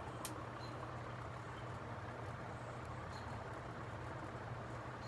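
Relite Airmaster Mark VII commercial ceiling fan motor running without its blades, a steady low electrical hum, with one sharp click about a quarter second in.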